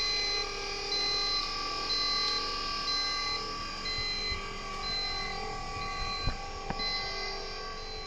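Hydraulic pump and motor of a roadshow truck running with a steady hum as its folding aluminium steps are lowered, while a warning buzzer beeps about once a second. Two short knocks about three-quarters of the way through.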